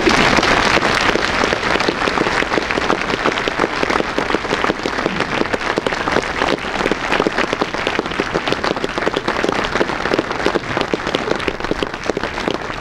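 Audience applauding in a theatre, a dense burst of clapping that sets in at once, loudest at first, and thins out to scattered claps near the end.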